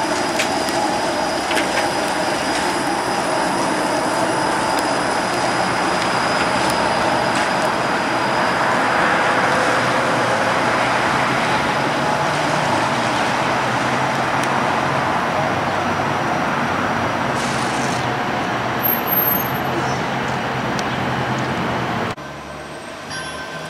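TTC Bombardier Flexity Outlook streetcar moving around a loop on curved track: a steady rumble of wheels and running gear, with faint wheel squeal in the first few seconds. The sound drops suddenly near the end.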